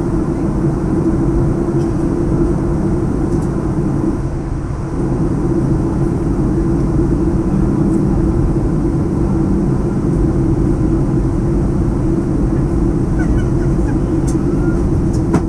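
Steady cabin drone of a Boeing 737-800 in flight, heard from a window seat: engine and airflow noise with a strong low hum.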